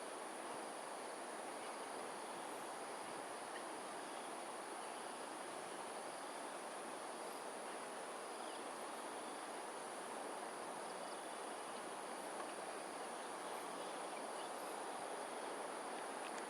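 Insects, likely crickets, trilling in one steady high-pitched tone, over a steady rushing background noise.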